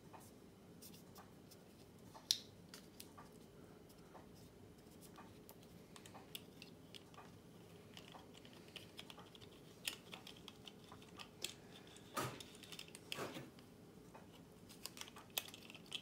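Faint, scattered clicks and taps of plastic and metal as the clear plastic finger wheel is fitted back onto a Princess phone's rotary dial. There is one sharper click about two seconds in and a cluster of clicks between about ten and thirteen seconds in.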